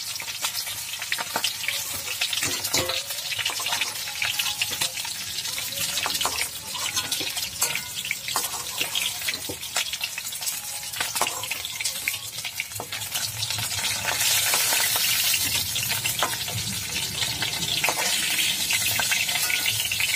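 Mustard oil sizzling and crackling in a metal wok as fried fish pieces are lifted out with a spatula, with short taps and scrapes of the spatula against the pan. The sizzling grows louder about two-thirds of the way through, once the pan is nearly empty and the oil bubbles freely.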